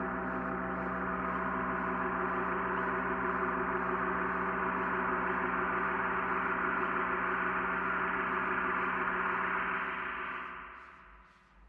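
Closing background music: a sustained, ringing drone of held tones that fades out about ten seconds in.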